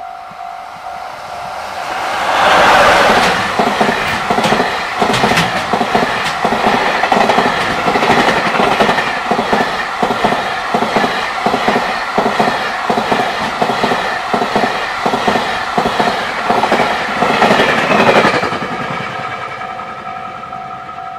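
A JR Freight train passes over a level crossing from about two seconds in until near the end, its wheels clacking steadily over the rail joints. Under it the crossing's warning bell rings on and on, a rapid pulsing electronic ding.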